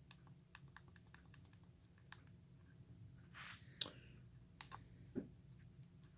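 Faint, irregular clicking of the buttons on a Nikon COOLPIX B500 compact camera being pressed while stepping through its menus, with one sharper click a little before four seconds in.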